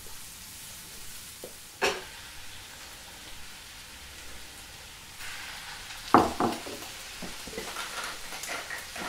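Chopped shallots frying in butter in a stainless-steel frying pan, a steady sizzle. About five seconds in, duck livers go into the pan and the sizzle grows louder. A sharp knock sounds about two seconds in, and a louder one about six seconds in.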